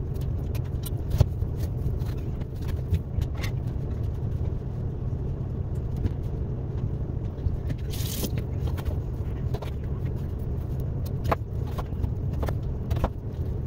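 Vegetable peeler and chef's knife working a butternut squash on a plastic cutting board: scattered sharp clicks and scrapes, with one brief hissing scrape about eight seconds in, over a steady low rumble.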